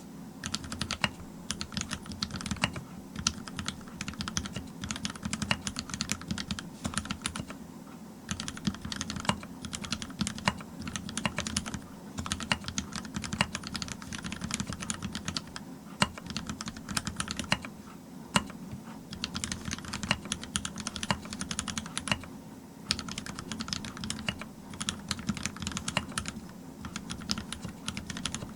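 Typing on a TX-87 mechanical keyboard with Cherry MX Black linear switches on a brass plate and GMK keycaps: a fast, uneven run of key clacks with a few brief pauses.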